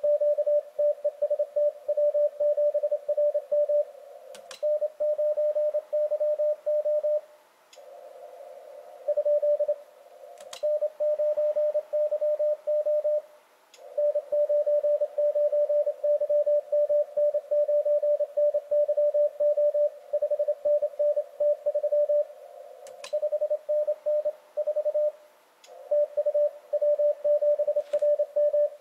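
Morse code (CW) from an Icom IC-7300 transceiver: a single steady tone of about 600 Hz keyed rapidly on and off, heard over a narrow band of receiver hiss from the CW filter, with a couple of short pauses. This is a CW contest exchange going back and forth, ending in a completed contact. A few sharp clicks sound over it.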